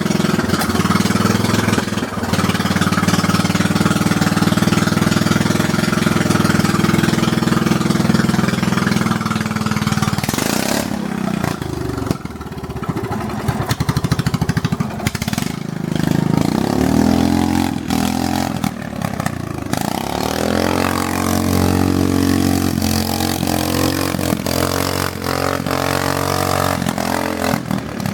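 Riding lawn mower engine running hard, its pitch falling and rising again several times as it is throttled down and revved back up.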